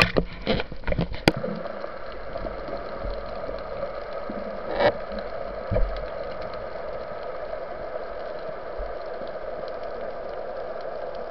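Underwater sound picked up by a camera in its housing: a steady muffled rush of water, with a few sharp knocks and clicks in the first second and a half and one more about five seconds in.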